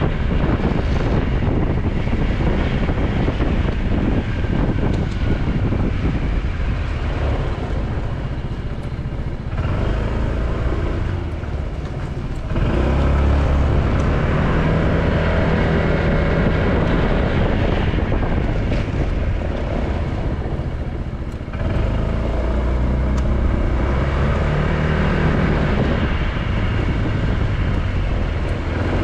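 Motorcycle being ridden: engine running under wind and road noise. It quietens between about 9 and 12 seconds in, then grows louder again, and dips once more and picks back up about 21 seconds in.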